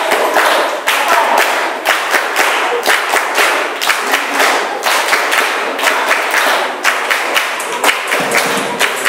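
Capoeira roda: a circle of people clapping hands together in a steady rhythm, with the roda's music going underneath.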